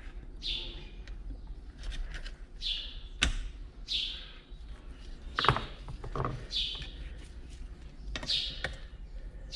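A songbird giving short falling chirps every second or two, with a few sharp clicks and knocks of parts being handled, the loudest a little past halfway.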